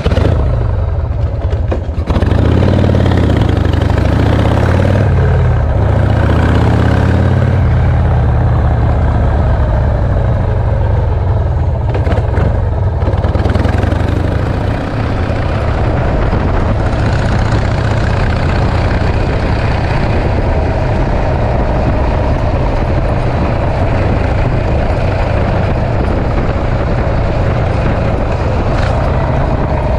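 Harley-Davidson Shovelhead V-twin engine of a chopper running on the road. About two seconds in it pulls away, its pitch rising with the revs, then it settles into steady cruising.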